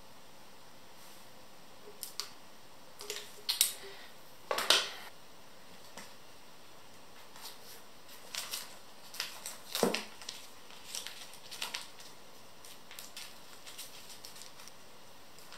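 Paper masking tape being torn off the roll and pressed down by hand: scattered short crackling rips and rustles, the loudest a few seconds in and again near the middle.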